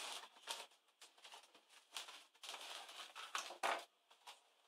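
Handling noise from an Asus K55VJ laptop's plastic casing as it is gripped and shifted on a desk: irregular scrapes and rustles, with two sharp clicks or knocks about three-quarters of the way through.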